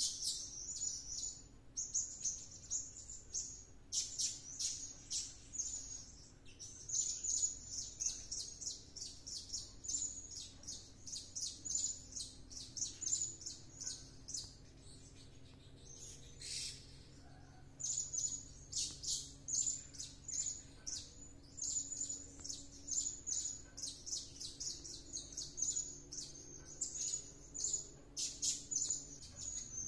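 Blue-crowned hanging parrot (serindit) calling non-stop: rapid runs of shrill, high-pitched chirps, several a second, with a short lull a little past halfway.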